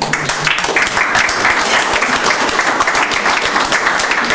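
Audience applauding, many hands clapping at once; the applause breaks out all at once and keeps going steadily.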